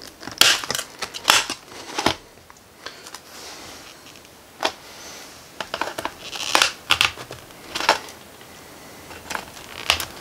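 Tin snips cutting slits into the rim of a thin tin-can tube: a series of short, sharp metal crunches, irregularly spaced, with brief pauses between cuts.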